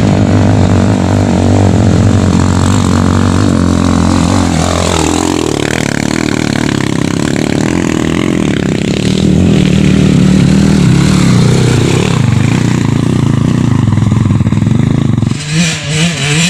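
Dirt bike engines revving hard on a steep trail climb, the pitch rising and falling as the throttle opens and closes. The sound changes abruptly near the end.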